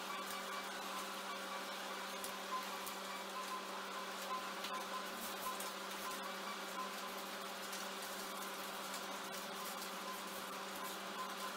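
Scissors cutting through doubled paper: faint irregular snips and paper rustles over a steady low electrical hum.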